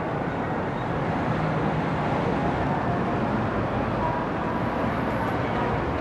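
Steady road traffic noise: cars driving along a busy street, an even rushing hum with no single event standing out.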